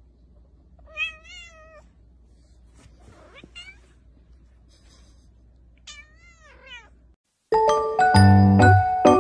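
A tabby kitten meowing: two long, wavering meows about five seconds apart, with fainter sounds between them. Piano music starts suddenly near the end and is louder than the meows.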